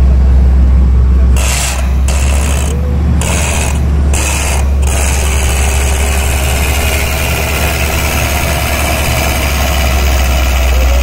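Borewell drilling rig running: a steady low engine drone, joined about a second and a half in by a loud rushing hiss of compressed air. The hiss stutters with short gaps at first, then runs continuously.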